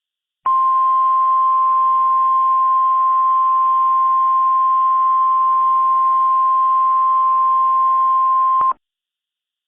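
A single steady electronic alert tone just above 1 kHz, held for about eight seconds and cutting off sharply near the end. It is the 1050 Hz NOAA Weather Radio warning alarm tone, which signals that a weather warning broadcast follows.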